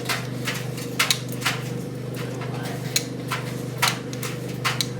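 White Knight C44A7W tumble dryer running: a steady motor hum with irregular knocks and clatter from the turning drum.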